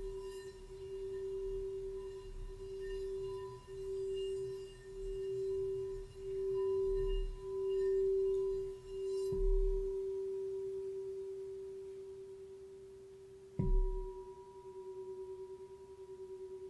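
Frosted quartz crystal singing bowl rubbed around the rim with a mallet, giving one steady ringing tone that swells and fades about once a second. The bowl is struck with the mallet about nine seconds in and again, more sharply and louder, near the end, and the tone rings on after each strike.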